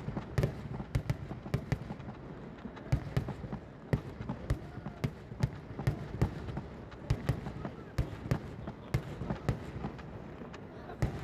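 Fireworks going off in a rapid, irregular barrage of sharp bangs and cracks, several a second, over a low rumble.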